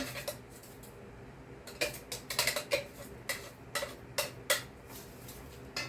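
Irregular sharp clicks and light knocks of kitchenware, a utensil or container tapping against other kitchenware, clustered over a few seconds starting about two seconds in.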